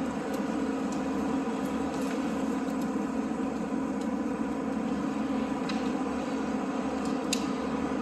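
Backhoe's diesel engine running steadily under load as it drags logs, with a few light clicks, the sharpest about seven seconds in.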